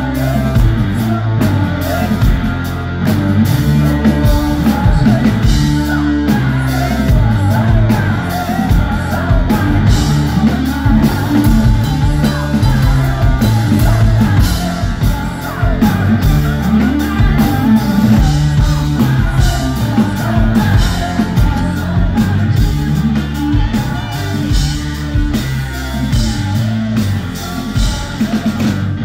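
Rock band playing live: electric guitars, bass and drum kit with singing, loud and continuous.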